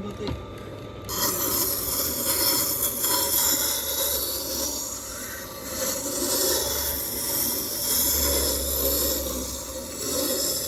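A spoon being sharpened on a Tormek T4 sharpening machine: a steady rasping scrape of steel on the turning wheel, which gets stronger about a second in, over the machine's low motor hum.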